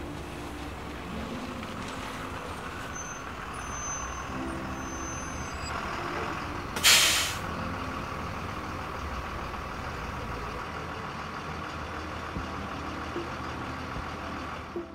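Transit bus engine running steadily, with a short, loud hiss of its air brakes releasing air about seven seconds in.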